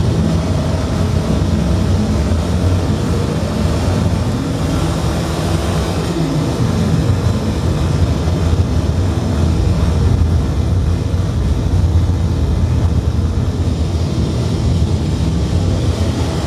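Loud, steady low rumbling drone with an even hiss above it, unbroken throughout.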